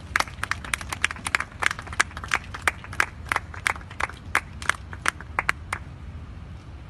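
A quick, uneven series of about two dozen sharp clacks, roughly four a second, that stops about six seconds in, with a low rumble underneath.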